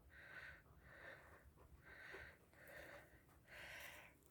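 Faint, rhythmic heavy breathing close to the microphone, a short airy breath about every half second to second.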